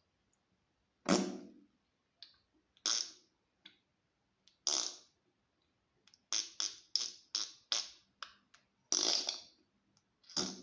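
Fart sounds, one after another. First come single farts about every two seconds, then a quick run of five in about a second and a half, then a longer one and another near the end.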